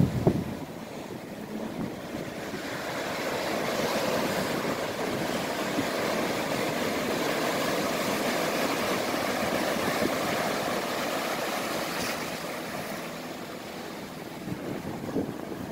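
Ocean surf breaking and rushing up the shore as a steady hiss of whitewater, swelling about three seconds in and dying away near the end. Wind buffets the microphone at the start.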